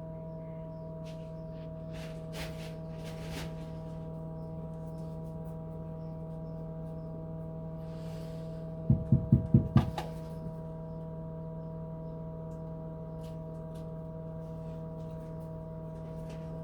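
Steady hum from an old refrigerator converted into an egg incubator, with faint scattered clicks. About nine seconds in comes a quick run of about five knocks.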